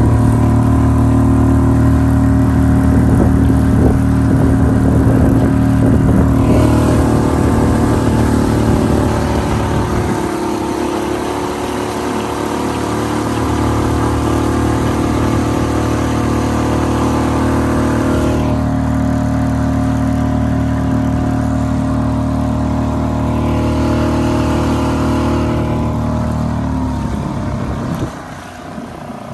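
Suzuki 2.5 hp single-cylinder four-stroke outboard motor running steadily under way, pushing a canoe. Its level drops abruptly near the end.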